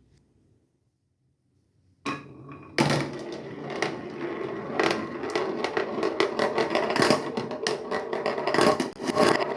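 Marbles rolling and clattering along a homemade wooden marble run: a dense, irregular stream of clicks and knocks over a steady rolling rumble. It starts suddenly about two seconds in, after near silence.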